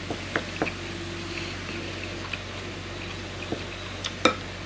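Metal spoon clicking and scraping against a white rice bowl in a handful of short, sharp knocks while scooping soft egg-and-ankake rice. Quiet wet eating sounds lie underneath, over a steady low room hum.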